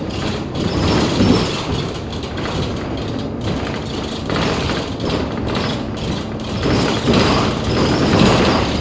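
Bus running on the road, heard from inside the cabin: engine and road noise with steady rattling, and the squeaking of loose fittings and panels.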